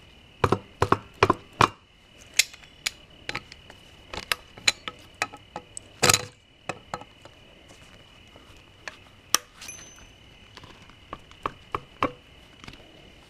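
Irregular metal clanks and knocks as vice grips clamped on the stuck driveshaft centering bushing are wrenched back and forth against the Cardan shaft flange to peel the bushing out, with a quick run of four hits early on and one heavier knock about six seconds in.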